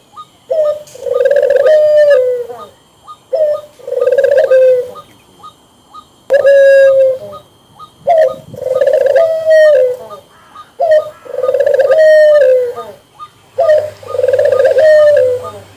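Dove cooing: a short note, then a long coo that drops in pitch at its end, repeated about every two to three seconds.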